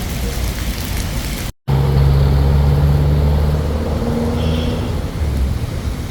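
Street noise in the rain, cut off abruptly for a split second about one and a half seconds in. After the cut, a motor vehicle's engine runs close by with a steady low drone that eases off near the end.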